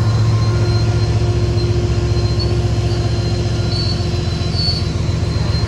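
Gravel train rolling by with a steady, loud low rumble. A faint high-pitched wheel squeal comes and goes several times.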